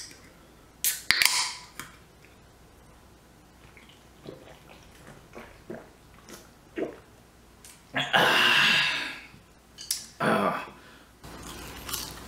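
Drinking from a can of carbonated soft drink: a sharp click at the start, short sipping and swallowing sounds, and a long loud breathy exhale about eight seconds in, with another shorter one near ten seconds.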